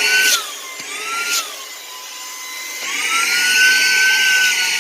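Cordless handheld vacuum cleaner running on its high setting: a motor whine with a rush of air whose pitch rises and falls twice, then climbs and holds high for the last couple of seconds as the airflow changes.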